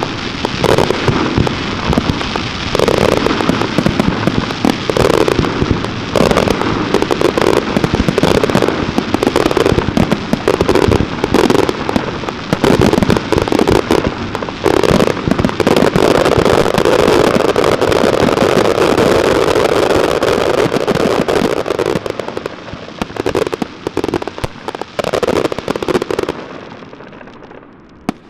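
Fireworks display heard close up: a dense, unbroken barrage of shell bursts and crackling. It dies away over the last couple of seconds, with one last sharp bang near the end.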